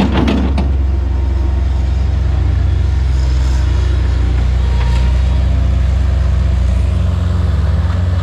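Bobcat S175 skid-steer loader's diesel engine running steadily while the machine works and drives. In the first half-second, dirt and rocks spill from its bucket into a steel dumpster with a brief clatter.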